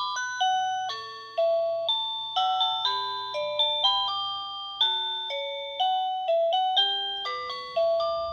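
OhmKat electronic video doorbell chime playing its tune number 25: a melody of clear bell-like notes, each struck sharply and fading, about two to three notes a second.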